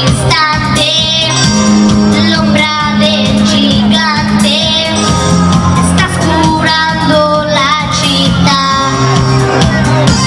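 A boy singing a pop ballad into a handheld microphone, amplified over a recorded backing track with bass and drums.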